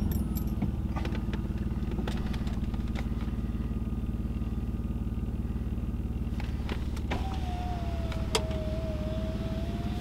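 BMW E46's M54B22 2.2-litre straight-six idling steadily just after starting. This is its first run with a new ignition coil fitted and the misfire code cleared, and it runs smoother, as the owner hears it. The exhaust is leaking through holes in the pipes.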